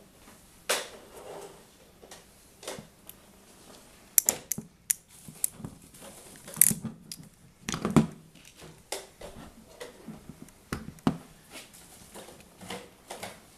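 Hand tools and wire being handled while stripping and crimping cable for a Molex plug: irregular clicks and knocks, with a quick run of clicks about four seconds in and louder knocks around six to eight seconds in.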